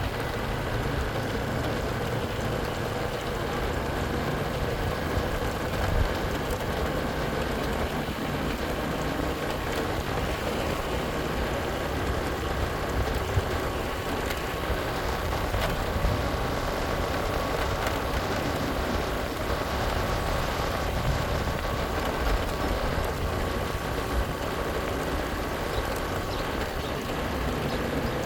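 Motorcycle running at a steady cruising speed, its engine a faint even hum under heavy wind noise on the microphone.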